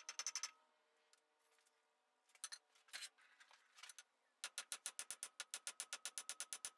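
Hammer blows on hot iron over an anvil, with the anvil ringing. A quick run of strikes stops about half a second in and a few single taps follow. From about four and a half seconds in comes a fast, even run of blows, roughly seven or eight a second, from a broad-faced cross-peen hammer forging a flat pad on the end of a leg.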